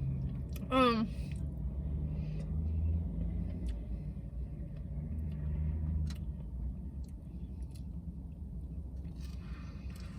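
Low vehicle rumble that swells twice and fades, with a brief hum of the voice about a second in and a few faint clicks.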